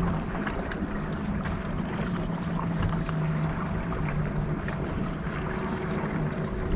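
A boat motor running steadily with a low, even hum, over a haze of wind and water noise.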